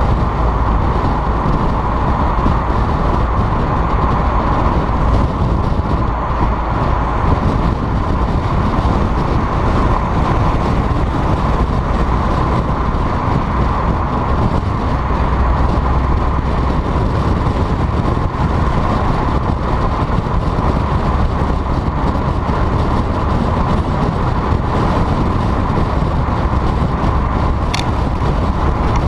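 Volkswagen GTI's turbocharged four-cylinder, on a stage 2 tune with a turbo-back exhaust, running at a steady pace under way, with a constant drone of exhaust, road and wind noise. A brief click near the end.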